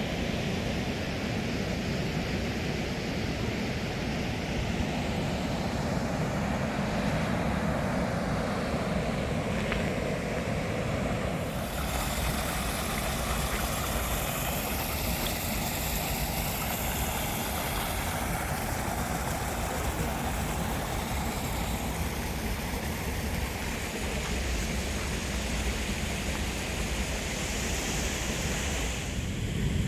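Goðafoss waterfall's steady roar of falling water. About twelve seconds in, the sound suddenly turns brighter and hissier.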